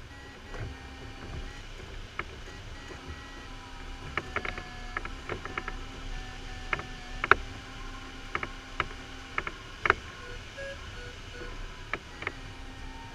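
Rolladen-Schneider LS4 glider in flight: a steady airflow hiss around the cockpit, with irregular sharp clicks and creaks of the cockpit fittings, thickest and loudest in the middle. Faint held tones that shift in pitch now and then sit underneath.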